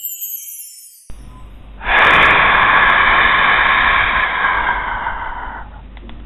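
Stadium crowd cheering in old, band-limited TV broadcast sound. It swells loud about two seconds in, holds, then fades near the end. Before it the backing music cuts off, leaving a falling electronic sweep.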